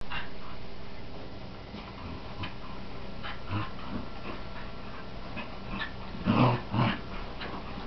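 Scottish terrier and Jack Russell terrier growling and whining as they play tug of war, in short scattered sounds, with two louder bursts about six and a half seconds in.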